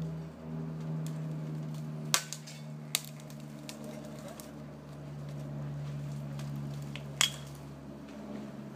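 A crane's engine running steadily under load. Over it come sharp cracks of spruce branches snapping, loudest about two, three and seven seconds in, as a hanging section of spruce trunk is set down onto the brush pile.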